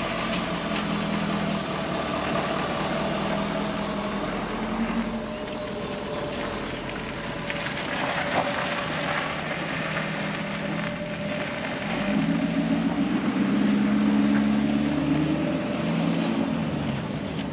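A vehicle engine running, with its low hum growing louder for several seconds about twelve seconds in.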